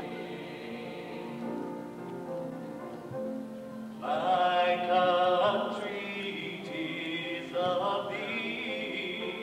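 A student choir singing long held notes, the voices growing louder and brighter about four seconds in.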